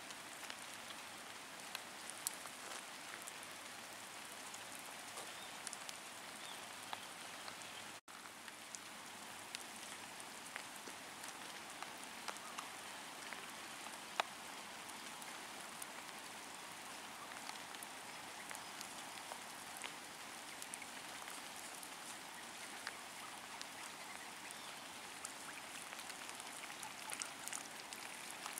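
Low, steady outdoor hiss with scattered soft ticks and clicks; the sound drops out for an instant about eight seconds in.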